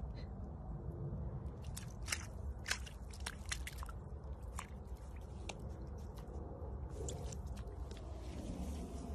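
Serval biting and chewing at a small furry animal on the ground: irregular sharp crunches and clicks over a low steady rumble.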